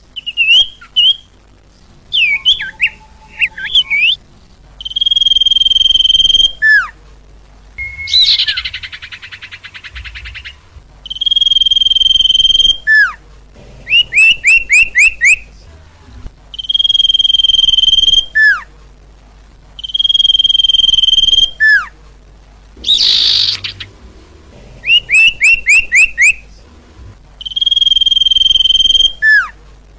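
Looped recording of 'sirtu' bird song played as a trapping lure. A long, steady high whistle ends in a falling slur, and this alternates with a quick run of four or five falling notes, repeating every few seconds. Now and then there is a short harsher, noisier call.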